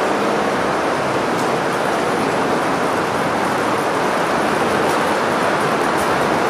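Model freight train rolling past on the layout track: a steady rattle of wheels on rails, with a few faint ticks.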